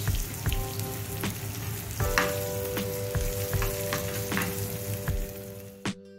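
Spices sizzling in hot ghee in a frying pan while a spatula stirs the tempering, with short scrapes and taps of the spatula against the pan. The sizzling cuts off abruptly near the end.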